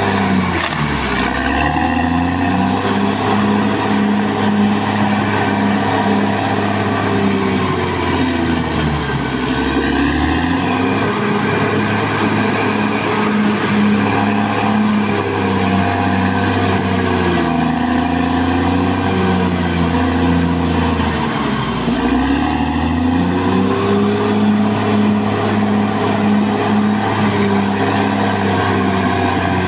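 Caterpillar D6R XL bulldozer's diesel engine running steadily under working load. Its pitch sags and recovers three times: about a second in, around ten seconds, and around twenty-two seconds.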